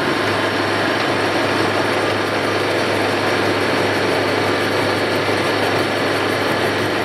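Spiral bevel gear cutting machine cutting the teeth of a metal spiral bevel pinion with its spinning face-mill cutter head: a steady, dense mechanical rattle of cutting over a constant low hum.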